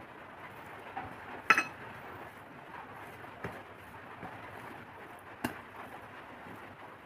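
Dishes clinking during a meal: one sharp, ringing clink about a second and a half in and a few softer taps later, over a steady background hiss.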